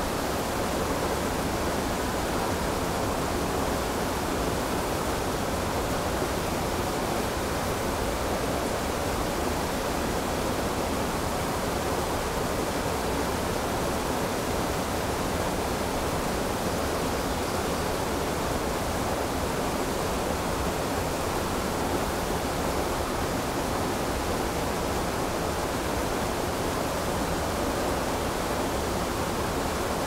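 Steady rush of a clear mountain river pouring over a low weir into shallow rapids.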